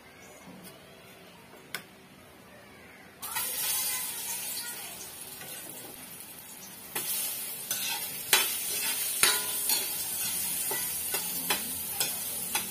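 Banana slices frying in hot oil in a wok. The sizzle starts suddenly about three seconds in and then holds steady. From about seven seconds in, a spatula knocks and scrapes against the wok as the pieces are stirred.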